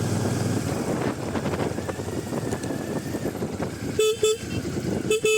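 Steady riding noise from a motorcycle on the move. About four seconds in come two short horn beeps, then a few more quick toots about a second later.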